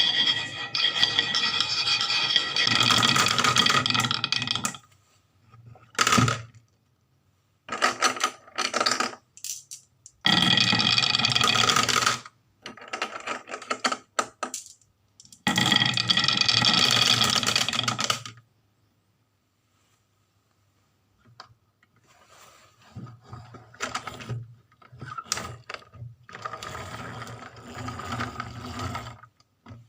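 Marbles rolling and clattering down a toy marble run, in loud runs of a few seconds with ringing clicks, short rattles between them, and softer rattling near the end.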